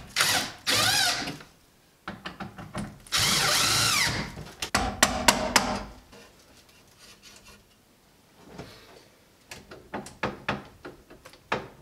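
A power drill runs in short bursts, the longest about three seconds in with its pitch rising and falling as the trigger is worked. Sharp clicks and taps of metal parts follow, loudest around five seconds in and fainter after that.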